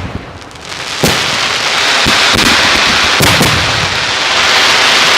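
Professional aerial fireworks display: a sharp shell burst about a second in, then a dense continuous crackle with several more bangs over it.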